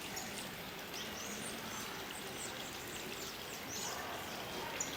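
Small birds chirping, with short high calls repeating every fraction of a second over steady background noise.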